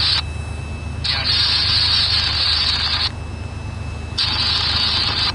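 Wind buffeting the microphone: a steady low rumble, with a hiss that cuts in and out abruptly, twice dropping away for about a second.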